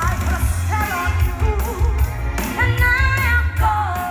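A stage-show song: singing over a pop-style backing track with a strong, steady bass beat, recorded from the audience.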